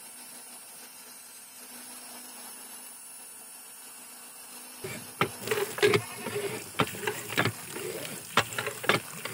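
Small DC motor water pump running with a faint steady hum. From about five seconds in, a run of irregular sharp knocks and clicks.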